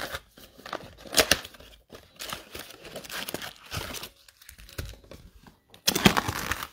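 Cardboard trading-card blaster box being torn open by hand, its foil-wrapped card packs crinkling as they are pulled out and stacked, in irregular rustles and tearing scrapes with a louder burst near the end.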